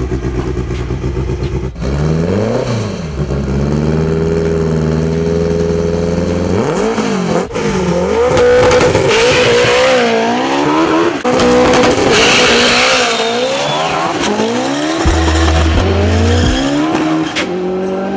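Turbocharged Honda drag car engine under hard acceleration. Its pitch climbs and then drops back several times as it shifts through the gears.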